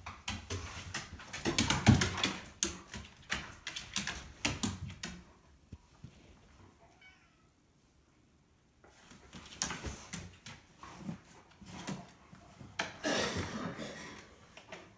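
A large dog's claws clicking and scrabbling on hardwood stairs as it drags and bumps its dog bed down the steps. There is a busy run of knocks and scuffs, a quiet pause in the middle, then more bumping and scraping.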